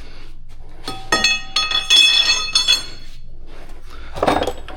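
Metal parts and tools clinking together several times, each strike ringing on with a bell-like tone, over about two seconds, then a single duller knock near the end.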